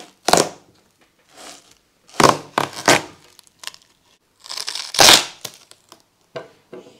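A kitchen knife cutting through a seedless watermelon's rind and flesh in several short tearing strokes, the loudest about five seconds in, as the melon is split into two halves.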